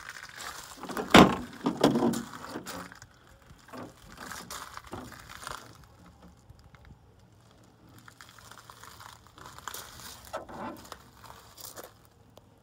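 Handling noises: a sharp knock about a second in, then a burst of clatter, followed by scattered quieter rustles and clicks.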